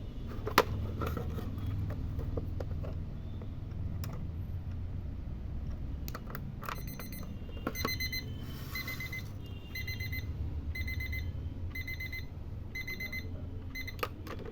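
Flip-date alarm clock's electronic alarm beeping in quick bursts, about one burst a second, starting about seven seconds in. Before it there are a few sharp clicks, the loudest about half a second in.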